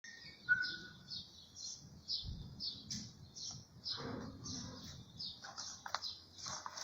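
Quiet outdoor background of rapid, repeated high-pitched chirping, about three chirps a second, with a few faint low knocks and a brief whistle about half a second in.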